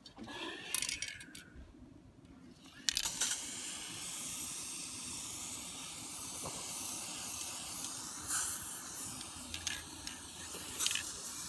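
Aerosol spray can of aluminium enamel paint spraying onto a steel base plate: a steady hiss that starts suddenly about three seconds in, after a few light knocks.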